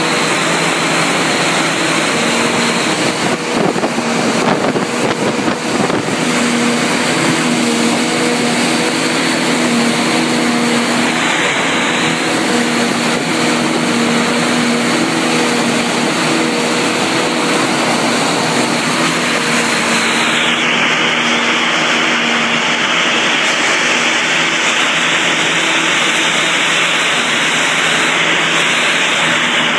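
Farm machinery at a corn silage harvest, its engine running steadily and loud. A constant hum of several tones sits over a dense hiss.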